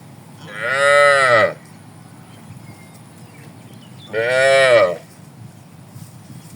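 Cattle mooing: two loud moos, about a second long each, the first about half a second in and the second about four seconds in, each rising slightly in pitch and then falling.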